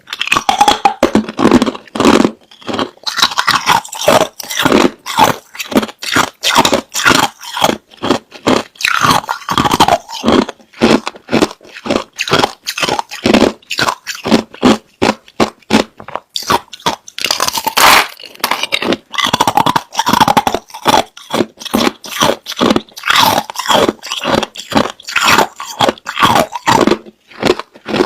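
Hard, clear crushed ice being bitten and chewed close to the microphone: loud, irregular crunches, several a second, as the ice cracks between the teeth.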